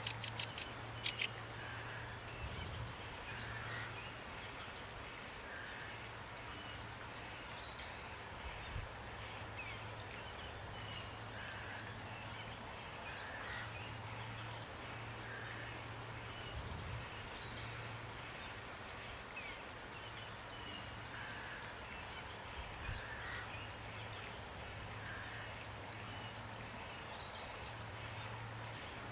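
Steady rain hiss with small songbirds chirping over it: quick, high, downward-sweeping notes and short trills every few seconds.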